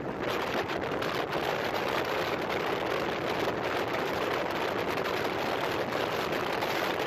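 Steady rushing wind over the microphone of a moving motorcycle, riding in the rain, with the bike's running noise underneath.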